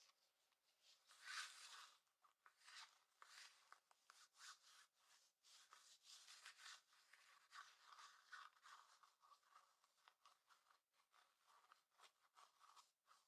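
Clothing fabric being scratched and rubbed in many quick, soft strokes, the loudest a little over a second in.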